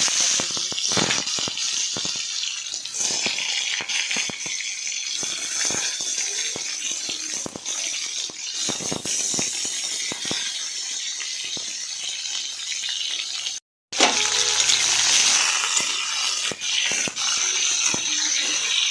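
Whole pointed gourds (potol) frying in hot oil in a kadai: a steady sizzle with many small pops and crackles of spattering oil. The sound breaks off for a moment about 14 seconds in, then sizzles on just as strongly.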